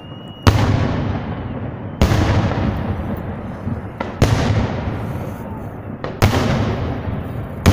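Aerial firework shells bursting overhead in a fireworks display, a loud bang about every two seconds, each followed by a long echo that fades away.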